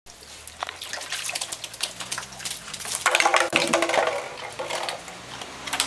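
Water sloshing and plastic bottles knocking in a shallow plastic tub as Golden Retriever puppies paddle and play in it: many small splashes and clatters, loudest about three seconds in.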